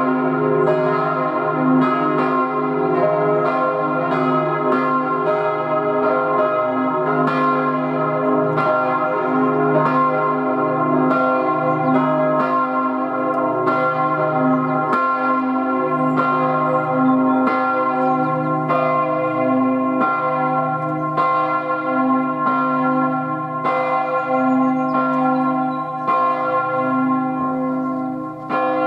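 The four swinging church bells of St. Oswald in Zug (tuned c', e-flat', f' and a-flat', cast 1897 by H. Rüetschi of Aarau) ringing together in a full peal. Their strikes overlap continuously at a bit more than one per second, over a bed of lingering hum tones.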